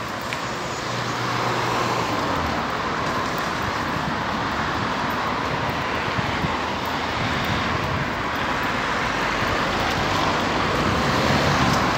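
Road traffic noise: cars passing, a steady rush of engine and tyre noise that swells a little now and then.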